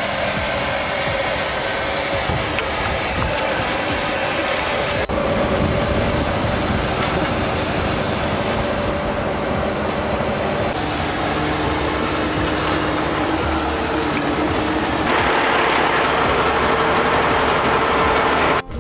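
Heavy rotator wrecker's diesel engine running steadily with a droning whine, its tone changing abruptly a few times.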